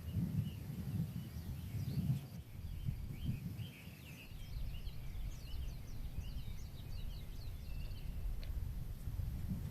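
Wind buffeting the microphone as a gusty low rumble, with small birds chirping and twittering throughout, busiest in the middle stretch.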